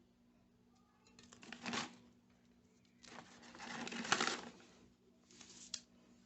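Aerosol spray-paint can hissing in three short bursts, the middle one the longest at about a second and a half.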